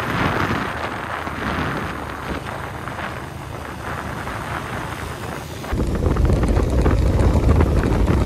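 Wind buffeting the microphone of a camera on a moving motorcycle, with the vehicle's running noise underneath. About six seconds in, the low rumble suddenly gets louder.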